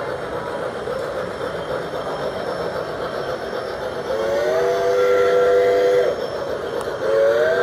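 Model steam locomotive's whistle sounding, a chord of three tones that slides up into pitch and holds for about two seconds, about four seconds in and again near the end, over the steady running noise of the model trains rolling along the track.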